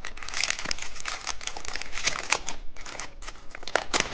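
Candy wrapper crinkling as it is handled and opened, a dense run of irregular crackles.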